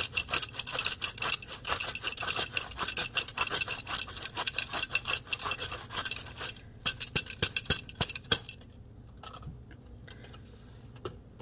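An apple being grated on a stainless-steel box grater: quick, repeated rasping strokes that pause briefly past the middle and stop about three quarters through.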